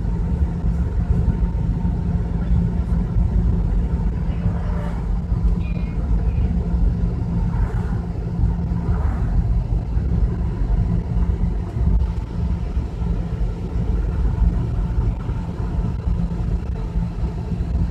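Steady road and engine noise of a moving vehicle, heard from inside the cabin: a constant low rumble with a steady hum.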